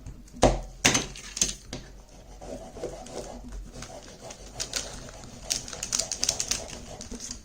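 Sharp clicks and taps of small plastic and metal parts being handled and pried apart inside a torn-down tablet: three louder knocks in the first second and a half, then a run of quicker, lighter clicks.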